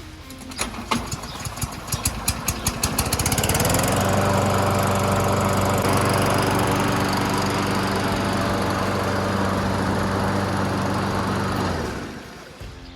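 Small four-stroke engine of a walk-behind push lawn mower starting after being primed: it fires unevenly and speeds up for a few seconds, catches about three and a half seconds in, and runs steadily before dying away near the end. This is the test run with fresh straight 30-weight small-engine oil, showing the engine works.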